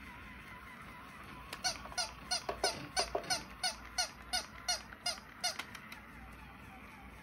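Walking toy dog giving a rapid run of short, squeaky yips, about three a second, starting about a second and a half in and stopping about four seconds later.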